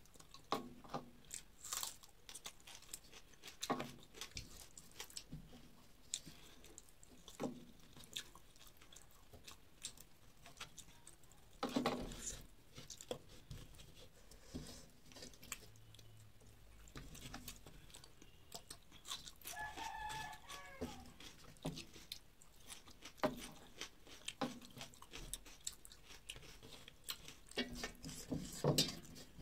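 Close eating sounds: chewing, lip smacks and fingers working rice on a brass plate, heard as scattered short clicks throughout. About twenty seconds in, a rooster crows once for about a second and a half.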